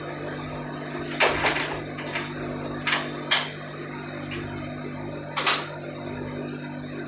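A steady machinery hum with a series of sharp clicks and knocks: a steel door's handle and latch as the door is opened, then metal hand tools knocking as they are picked up and handled.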